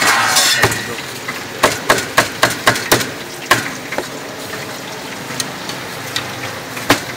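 Cleaver chopping on a thick wooden chopping block: a quick run of about six sharp knocks starting about a second and a half in, a couple of single chops, then a pause before more chops near the end.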